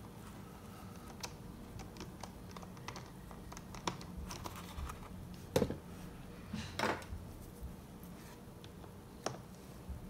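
Light, scattered clicks and scrapes of a small Torx screwdriver working T5 screws out of a laptop's bottom cover, with a sharper click about halfway through and a short scrape just after it.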